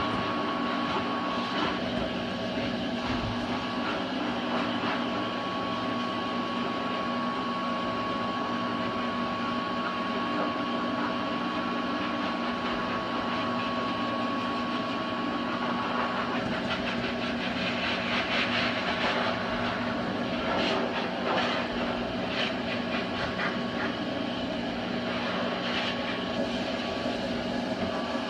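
An electric blower running steadily with a constant hum and a thin steady whine that fades out about two-thirds of the way through. Scratchy rustling comes and goes in the second half.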